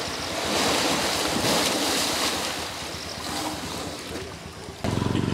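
Water splashing and churning as a Sri Lankan elephant thrashes in a canal, loudest about a second in. Near the end it gives way abruptly to the steady, evenly pulsing sound of an engine running.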